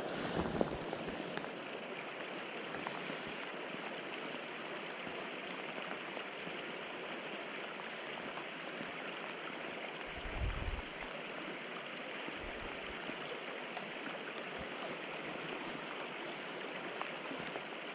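River water flowing steadily, with a brief low bump of wind or handling on the microphone about ten seconds in.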